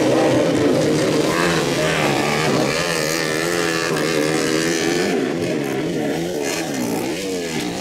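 Dirt bike engine revving up and down repeatedly as the bike churns through deep mud.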